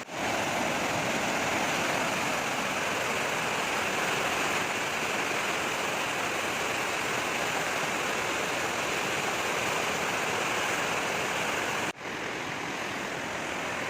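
Fast-flowing floodwater rushing steadily, with a brief dropout about twelve seconds in before the rushing resumes.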